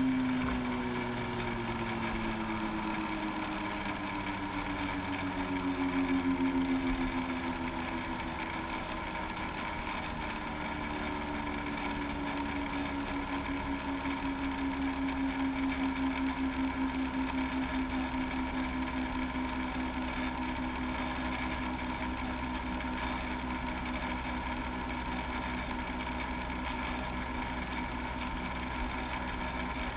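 A small motor or fan running steadily with a low hum, its pitch slowly sliding down over several seconds.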